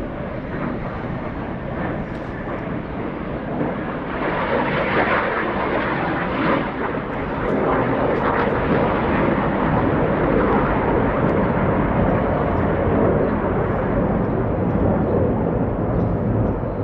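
Engine noise of a formation of military aircraft flying over, a steady drone that grows louder about four seconds in and holds.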